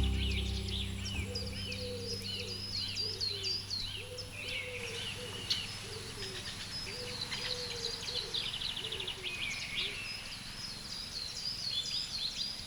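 Several wild birds singing and chirping, with rapid repeated high chirps and a lower repeated call. A low sustained music chord fades out over the first second or two.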